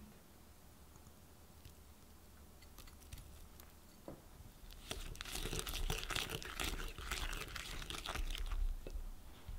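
Hand whisk creaming softened butter with brown sugar in a glass bowl: quiet at first, then from about five seconds in a dense, gritty crackling and squishing as the whisk beats the sugar into the butter.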